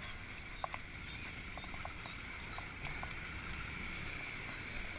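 Steady rumble of wind and tyres on the road from a moving bicycle, heard close on a handlebar-mounted camera, with a few faint short squeaks in the first half.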